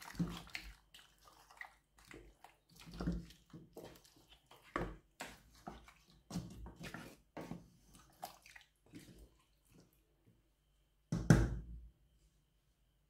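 Wooden spatula stirring a thick meat stew in a stainless steel pot: uneven wet squelching and sloshing with scrapes and knocks against the pot. The loudest knock comes near the end, and then the stirring stops.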